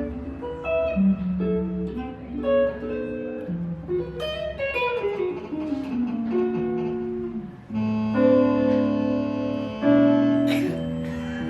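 A guitar being played: a line of single notes with a descending run about halfway through, then held chords from about eight seconds in.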